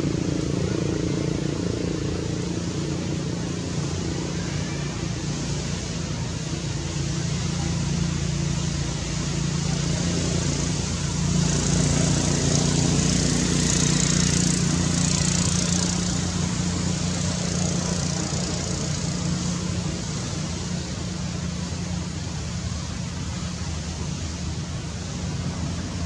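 Steady low hum of a running motor under a constant hiss, a little louder for a few seconds in the middle.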